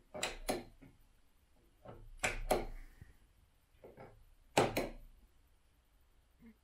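Three pairs of sharp knocks, each pair coming about two seconds after the last, with a softer knock just before the second and third pairs.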